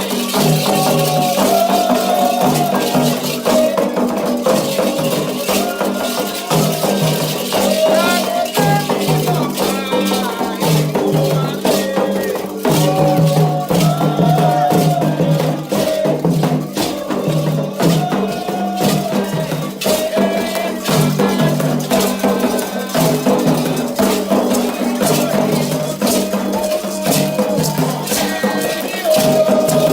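Candomblé ritual music: rattles shaken in a steady, dense rhythm over percussion, with voices chanting.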